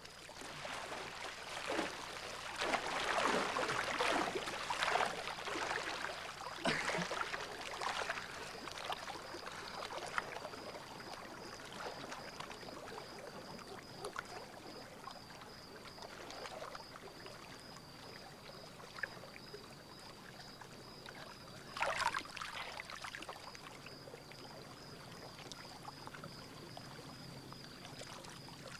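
Swimming-pool water splashing and lapping as people move through it. The splashing is busiest over the first several seconds and again briefly about 22 seconds in, with softer lapping in between.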